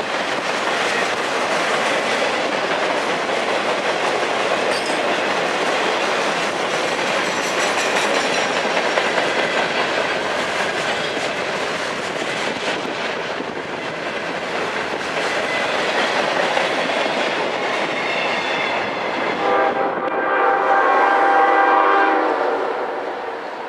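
Freight train rolling by, its wheels clacking over the rail joints in a steady rush of noise. Near the end a locomotive air horn blows a chord for about three seconds.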